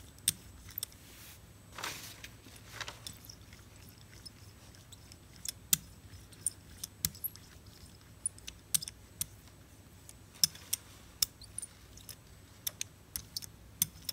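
Hand brayer rolling paint out over a gel printing plate, making a sticky crackling with many irregular sharp clicks and ticks.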